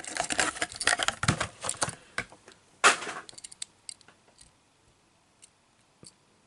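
Plastic blister packaging of a die-cast toy car being handled, crackling and clicking for about two seconds, with one sharp crackle near three seconds in, then a few faint ticks.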